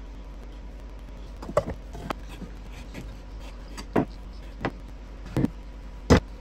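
Fiberglass mat being cut and handled into patch pieces: about six short, sharp snips and knocks, the loudest near the end, over a steady low hum.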